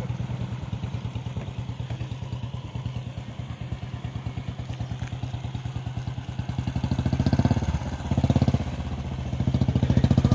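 Royal Enfield motorcycle's single-cylinder engine idling with an even, rapid thump; in the last few seconds the throttle is blipped three times, each rev swelling louder and settling back.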